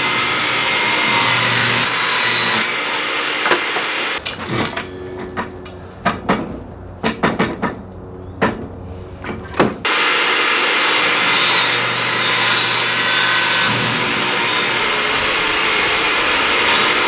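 Jobsite table saw running and ripping a thin strip off a wooden board. About four seconds in the saw stops, and a string of knocks and clicks follows as the board, fence and tape measure are handled; about ten seconds in the saw starts again for another rip cut.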